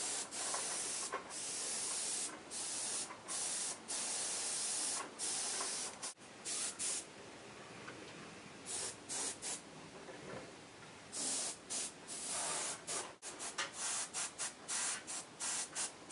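Airbrush spraying paint in a series of hisses, started and stopped with the trigger. Near the end it sprays in many short, quick bursts.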